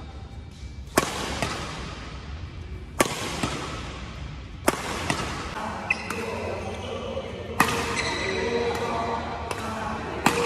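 Yonex Astrox 88S Pro badminton racquet strings striking a shuttlecock: five sharp cracks roughly two seconds apart, each ringing out in the echoing hall, with a few lighter clicks between them.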